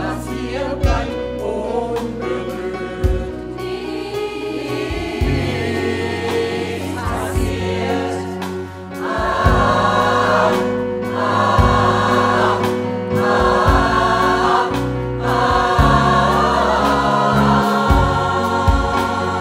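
A mixed choir sings a pop song, backed by a band with a steady bass line. In the second half the choir holds four long chords, with short breaks between them.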